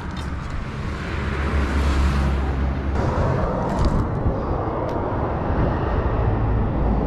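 Wind rushing over the microphone of a camera on a moving bicycle, with a few light clicks about four seconds in.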